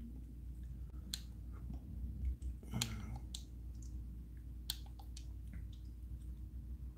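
A handful of scattered sharp clicks and light taps, the loudest a knock nearly three seconds in, over a low steady hum.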